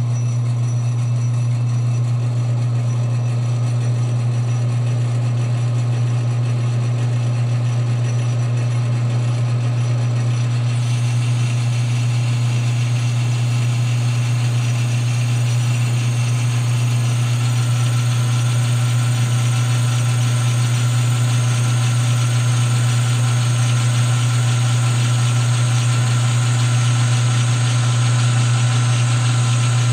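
Metal lathe running steadily with a strong low hum from its motor and drive, while the tool is fed along the spinning workpiece on a turning pass; the sound gets a little brighter and hissier partway through.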